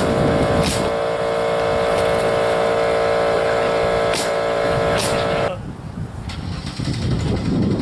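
Handheld leaf blower running at a steady pitch, stopping abruptly about five and a half seconds in. Three sharp knocks sound over it, the last two close together near the end.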